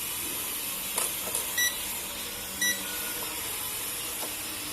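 Small camera drone in flight, its propeller motors giving a steady high whir, with two short electronic beeps from the drone or its remote a second or so apart and a click about a second in.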